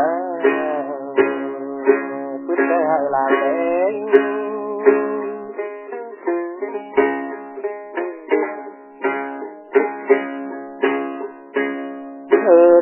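Instrumental interlude on a plucked string instrument: a melody of quickly decaying notes, some bent up and down in pitch, over a steady held drone.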